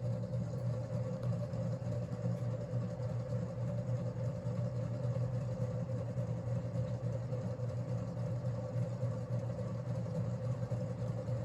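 Antique Westinghouse ceiling fan running at a high speed setting, a steady hum with a noisy rumble from its worn bearings, which have run dry for years and have only a little oil in them for testing.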